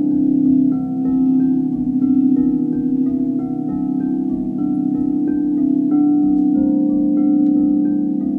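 A set of white frosted crystal singing bowls played with two mallets, several bowls ringing at once in sustained, overlapping tones with a regular pulsing beat. Short higher notes recur a few times a second over the held tones.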